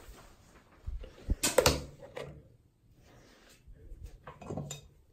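Sharp clicks and knocks of a door and a handheld phone being moved about in a small bathroom. The loudest is a cluster of knocks about a second and a half in, with lighter clicks near the end.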